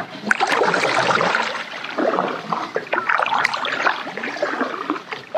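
Water splashing and trickling close by as a plastic kayak is paddled: paddle strokes and drips, and water washing against the hull.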